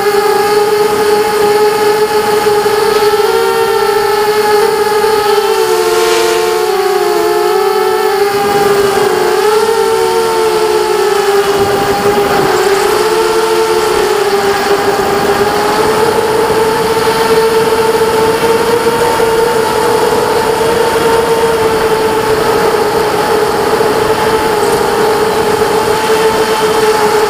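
A KingKong 260 FPV racing quadcopter's motors and propellers whine in flight, heard through the onboard camera's microphone. The steady whine splits into several wavering pitches from a few seconds in until about halfway, as the individual motors change speed through manoeuvres, then settles back to a steady tone.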